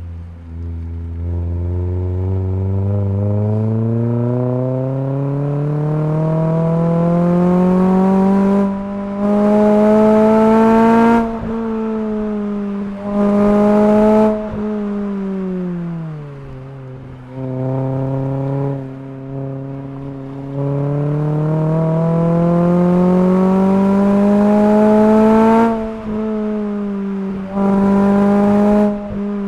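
Renault Clio 3 R.S. Cup's naturally aspirated 2.0-litre four-cylinder engine with an Akrapovič Evolution full exhaust, heard from inside the cabin under acceleration. The revs climb steadily for about eleven seconds and drop away around sixteen seconds in as the car slows. They climb again through a second long pull and fall off near the end. Short, louder bursts of harder throttle come about nine, thirteen and twenty-seven seconds in.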